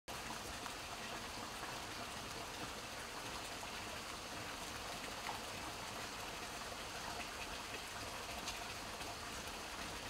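Shallow stream trickling over stones: a steady, even wash of running water.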